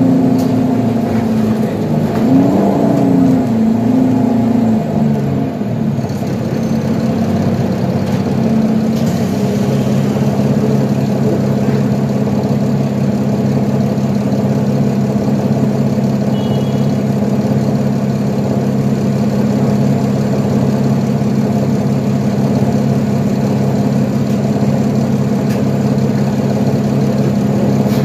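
Engine of a 2012 Nova Bus LFS articulated city bus, heard from inside the passenger cabin. Its pitch rises and falls for the first several seconds, then settles into a steady drone for the rest.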